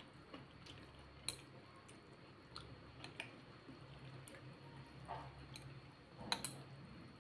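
Metal chopsticks and a metal spoon mixing rice noodles in a ceramic bowl: soft wet stirring with scattered sharp clinks against the bowl, the loudest a quick pair near the end.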